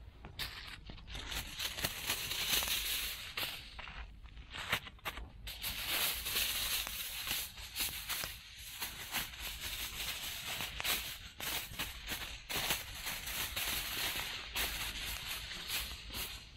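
Aluminium foil being crumpled by hand as it is wrapped around a chicken into a ball, crinkling and crackling irregularly, with a couple of brief lulls.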